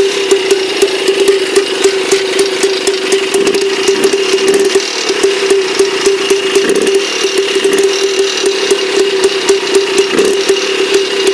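Small air-cooled single-cylinder tractor engine running at a steady idle: a constant drone with a fast, uneven clatter of ticks over it.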